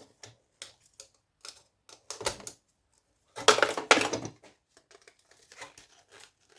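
Sharp metal clicks and clacks of hand tools working loose parts on an electronics board. A denser, louder stretch of scraping and clattering comes about three and a half seconds in and lasts about a second.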